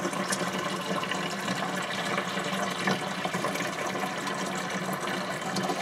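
Water running steadily from the hose inlet into the tub of a Ramtons single-tub washing machine as it fills, with a faint steady low hum underneath.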